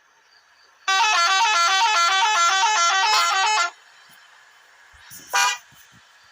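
Multi-tone 'telolet' musical air horn playing a quick run of stepping notes for almost three seconds, then cutting off. A brief rising whoop follows near the end.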